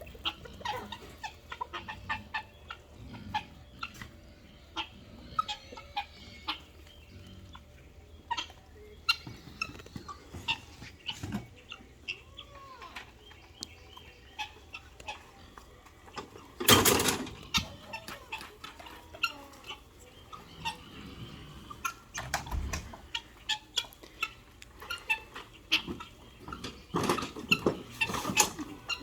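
Chickens and roosters clucking in short scattered calls, with small knocks and scratching sounds. A loud noisy burst comes about seventeen seconds in, and a dull thump about five seconds later.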